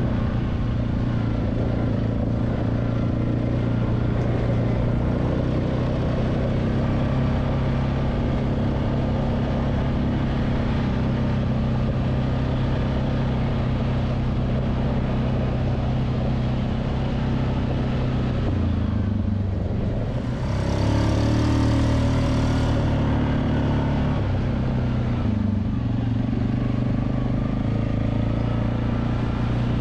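An ATV engine running steadily at trail speed. About two-thirds of the way through the note drops, then climbs again under throttle, with a brief hiss alongside.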